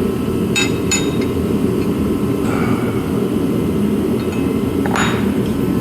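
Steel axle parts clinking against each other as they are handled: two sharp clinks about half a second in and another near the end, over a steady low rumble.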